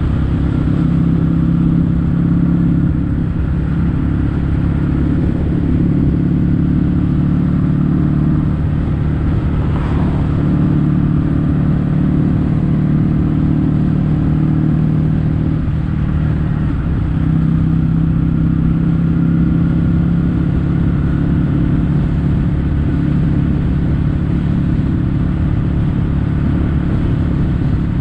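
Kawasaki W800's air-cooled parallel-twin engine running steadily at cruise through aftermarket Yamato stainless-steel caburton silencers, with a brief change in the engine note a little past halfway.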